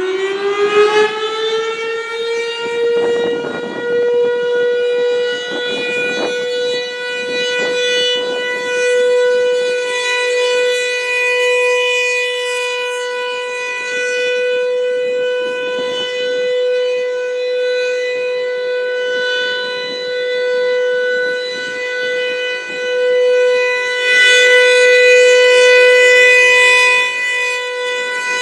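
Federal Signal Thunderbolt 1000 outdoor warning siren sounding the steady alert signal. Fully wound up, it holds one steady tone rich in overtones. Its loudness swells and fades as the horn rotates, and it is loudest from about 24 to 27 seconds in.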